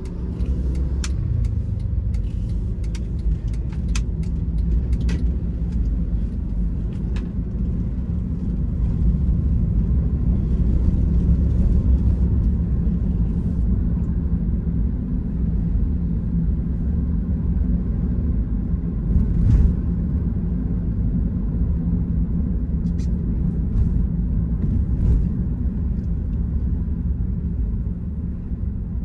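Cabin sound of a 2012 Honda Freed GB3 minivan with its 1.5-litre L15A i-VTEC four-cylinder driving slowly: steady engine and road rumble, a little louder in the middle, with a few sharp clicks in the first several seconds.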